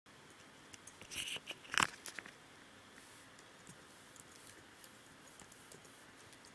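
Crisp clicks and crunchy crackles bunched about one to two seconds in, then faint hiss with a few scattered light ticks: handling noise from a hand-held camera.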